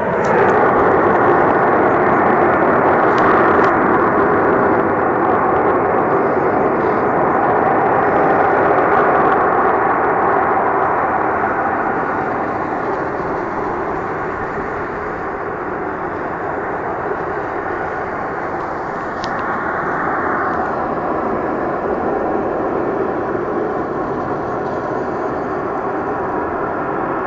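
A loud, steady drone made of several held tones over a rushing noise, its higher part thinning about twenty seconds in. The source is unidentified: the recorder first took it for an aeroplane, but it went on for 20–30 minutes.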